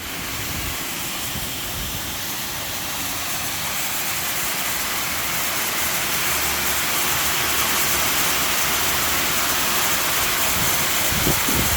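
Water jets of a whole-lettuce washing machine spraying, a steady hiss that grows slightly louder.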